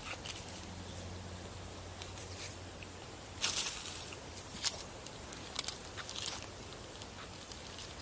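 Handling noise from a fishing rod and spinning reel: a short rustling hiss about three and a half seconds in, the loudest sound, then a few sharp clicks.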